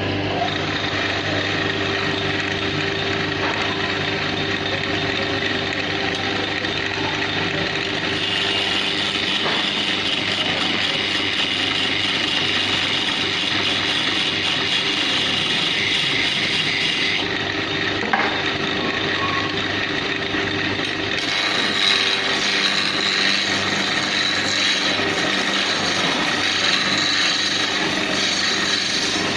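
Wood lathe running while a turning tool cuts into a spinning wooden table leg: a steady scraping hiss over the motor's hum, its tone shifting several times as the cut changes.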